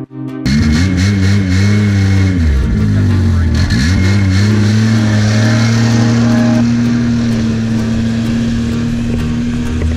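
Bearcat snowmobile engine running loudly. Its pitch wobbles, dips and climbs back twice about three seconds in, then holds a steady note as the sled travels.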